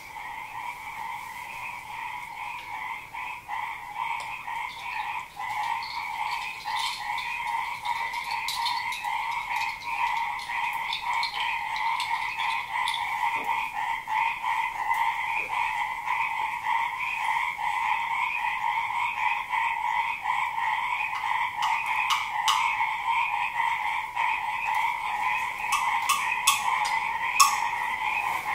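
A dense chorus of frogs calling steadily, swelling louder over the first several seconds. Near the end a few sharp taps sound over it, the loudest just before it ends.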